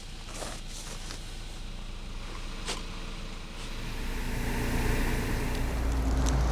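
World Rally Car engine running hard, getting louder about four seconds in, with a few sharp knocks along the way.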